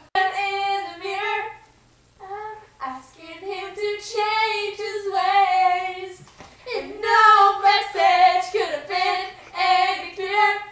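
Young female voices singing a tune unaccompanied, in held notes, with a brief pause about two seconds in.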